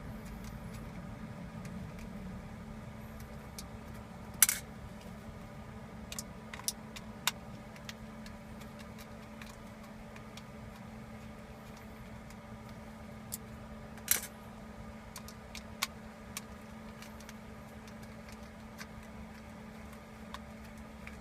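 Scattered metallic clicks and clinks of a hand tool taking out the bolts that hold a car's parking brake module, the two loudest about four and a half seconds and fourteen seconds in, over a steady low hum.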